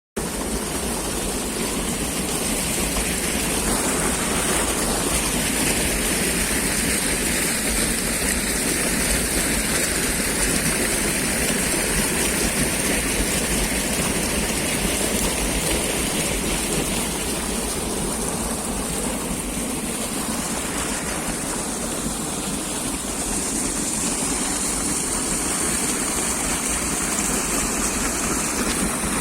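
Water rushing steadily in a forest stream, an even continuous flowing sound.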